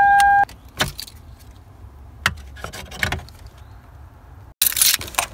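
Car keys jingling and small plastic clicks as the ignition key is turned off and the scan tool's connector is pulled from and pushed back into the OBD-II port under the dashboard, with a louder scraping rustle near the end. A steady electronic tone stops about half a second in.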